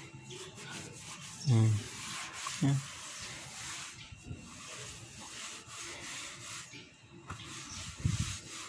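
A cloth rag with used oil on it rubbing and wiping over a Yamaha Sniper 150's rear swingarm area and exhaust muffler, a steady scrubbing noise. A person's voice gives two brief murmurs about one and a half and nearly three seconds in.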